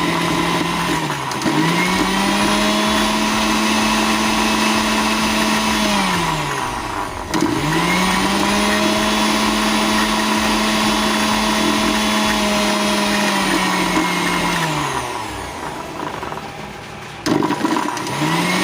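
Sujata mixer grinder's motor run in short bursts: it spins up to a steady whine, holds for several seconds and winds down when switched off, twice, then starts a third time near the end. This is a test run with the new coupler fitted.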